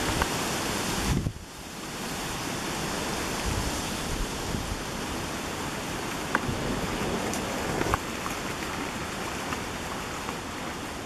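Steady rushing outdoor noise, with a few faint clicks; it dips sharply about a second in, then carries on.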